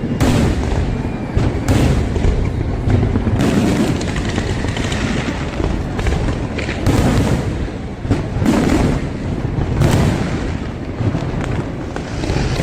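Aerial fireworks display bursting in quick succession: a booming strike every second or so over a continuous low rumble of echoing explosions.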